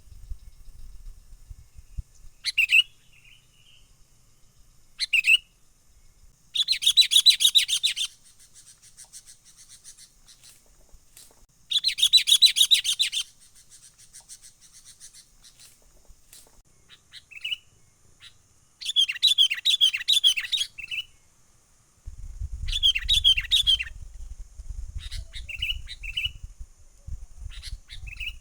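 Sooty-headed bulbul (kutilang) calling: short single chirps alternating with rapid chattering trills of one to two seconds, repeated several times.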